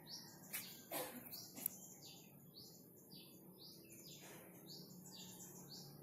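A bird chirping faintly and over and over, short high notes at about two a second. A few soft knocks and one sharp click come in the first two seconds.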